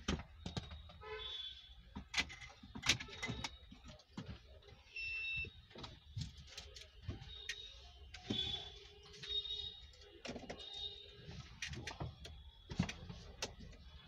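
Faint, scattered clicks, knocks and rustles of hands working under a car's dashboard and a person shifting through the open driver's door into the seat.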